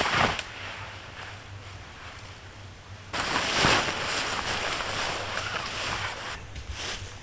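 Wind rushing over the microphone, with a stronger gust about three seconds in that lasts roughly three seconds.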